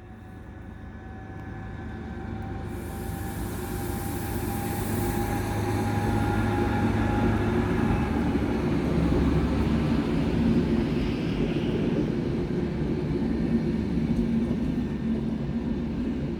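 Train approaching and passing close by, growing louder over the first six seconds and then holding as a steady rumble with a faint whine above it.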